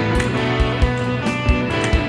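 Background music: guitar-led with a steady beat.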